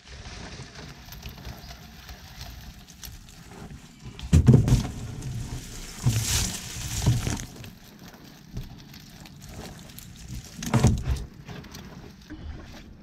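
Mantis shrimp being shaken out of a mesh net trap into a plastic basket: three or four bouts of rustling, clattering and dull knocks as the catch drops in.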